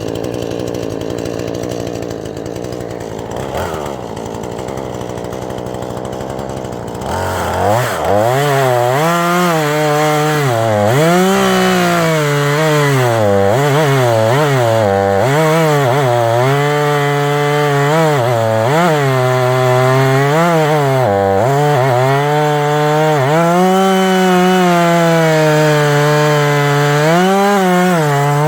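Husqvarna 440e two-stroke chainsaw running at a steady lower speed, then opened up about seven seconds in and cutting wood. Its pitch repeatedly sags under load and climbs back.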